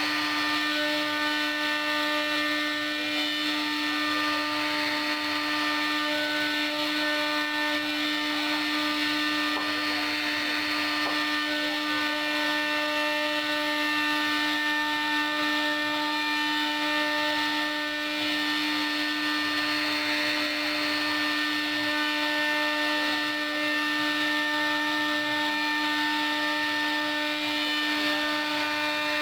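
CNC router spindle running at a steady speed while its bit carves wood: a constant whine with an even cutting hiss, unchanging throughout.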